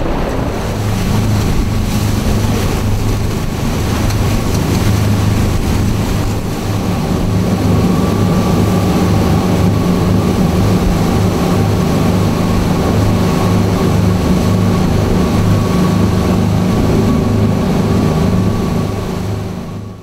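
Motorboat engine running steadily at speed, with water splashing against the hull and wind buffeting the microphone; the sound fades out near the end.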